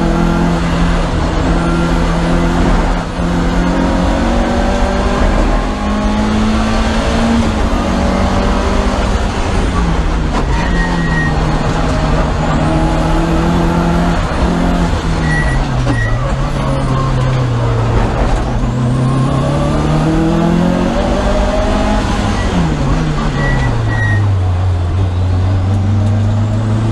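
Lancia Delta HF Integrale's turbocharged four-cylinder engine at race pace, heard from inside the cabin: the engine note climbs, drops back at each gear change and climbs again, with faint high whistles rising as it pulls. Near the end the pitch falls away steeply as the car brakes hard and shifts down for a slow corner.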